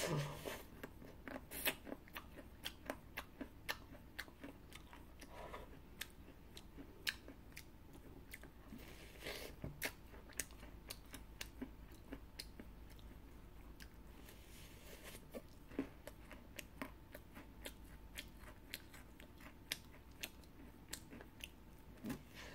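A crunchy cookie being bitten and chewed, a steady run of sharp, irregular crunches.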